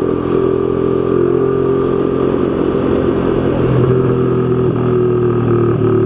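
Z200S motorcycle engine running through an open Akrapovic Evo GP slip-on exhaust at a steady speed, with a few short backfire pops from the pipe in the second half. The rider blames the frequent backfiring on the exhaust gasket being fitted.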